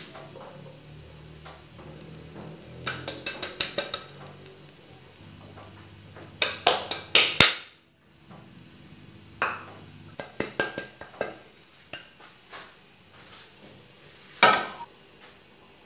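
Kitchen utensils and bowls clinking and scraping against a glass mixing bowl as flour is mixed into a batter: irregular clusters of sharp taps, the loudest a little before halfway and again near the end.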